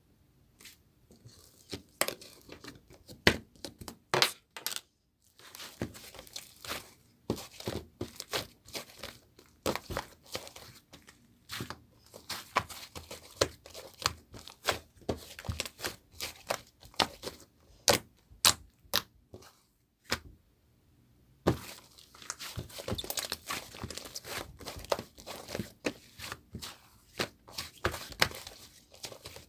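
Crinkly material being handled, with dense sharp crackles and crinkles in quick succession. They pause briefly about five seconds in and again around twenty seconds in.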